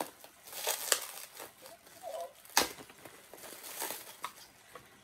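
Packaging crinkling and rustling as items are handled during unboxing, with a few sharp clicks and one louder knock about two and a half seconds in.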